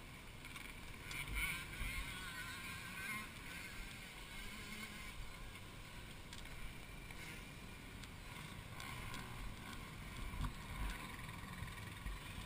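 Faint, distant dirt bike engines running, their pitch wavering up and down, over a low rumble.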